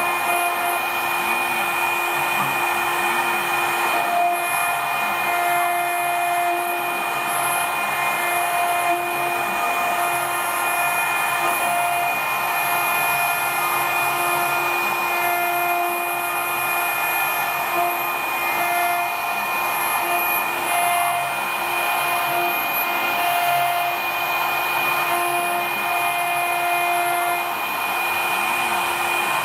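A 6090 CNC engraving machine's high-speed spindle runs steadily while its small engraving bit cuts relief lettering into a brass medallion. There is a constant high whine and hiss, with lower tones that cut in and out every second or so as the tool moves over the work.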